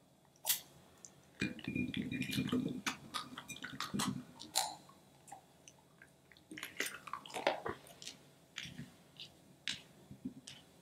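The thin inner skin of a cut-open stress ball crinkles and squishes as it is squeezed and emptied, and the small balls from its filling drop and click into a bowl and are handled. There is a denser squishy crinkling in the first few seconds and scattered sharp little clicks throughout.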